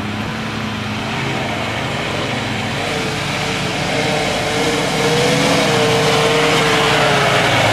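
Off-road 4x4 engine working under load, over a steady low drone. From about three seconds in its note rises and wavers, and it grows louder.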